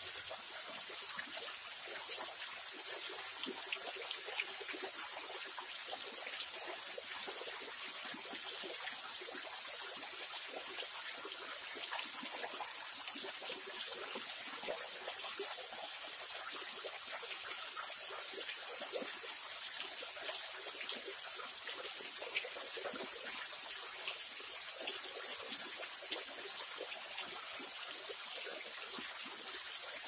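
Small waterfall falling in many thin streams over a rock ledge into a shallow pool: a steady hiss of falling, trickling water with scattered small splashes.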